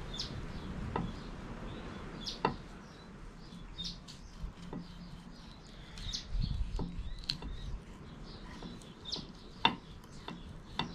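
Knife blade clicking and scraping against a ceramic plate while filleting a small Tommy ruff, a few sharp clicks spread out, the loudest near the end. Faint birds chirp in the background.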